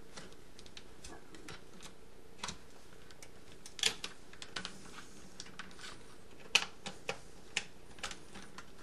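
Front-panel push-buttons and rotary switches of a B+K Precision 2125 oscilloscope being clicked by hand, about a dozen irregular sharp clicks.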